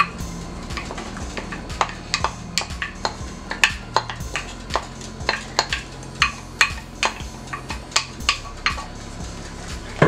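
Wooden spoon knocking and scraping against a glass bowl and a pan as chopped vegetables are tipped into simmering sauce: a run of sharp, irregular knocks, two or three a second.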